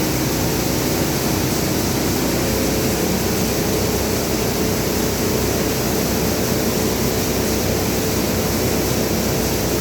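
Stainless paddy grain dryer running on a test run: a steady, loud whirring of its blower and motors with a constant hum.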